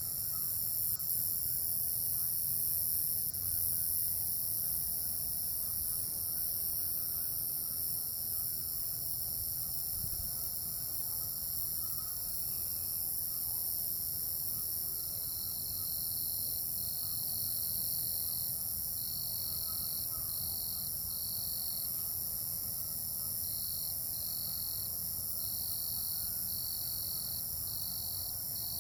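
Night chorus of calling animals: a dense, steady high-pitched trilling, joined about halfway through by a regular repeated chirp about once or twice a second, over a faint low background rumble.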